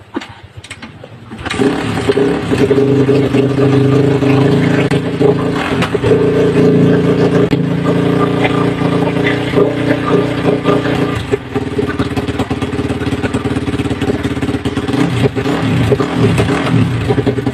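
A 2007 Honda CRF450X's single-cylinder four-stroke engine starts about a second and a half in and keeps running, its revs easing down a little after about eleven seconds.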